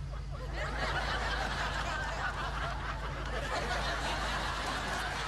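Sitcom studio audience laughing, swelling about half a second in and carrying on as a steady wash of laughter.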